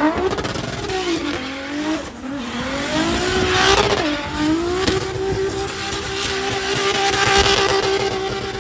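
Nissan Silvia S15 drift car doing donuts. Its engine revs fall and climb again several times over a screech of spinning rear tyres, then the revs are held steady and high for the last few seconds of the burnout.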